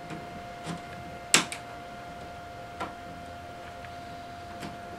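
Small flathead screwdriver prying up the metal rail tabs on the underside of a plastic Lionel FasTrack curve section: a handful of light clicks, the sharpest about a second and a half in, over a faint steady hum.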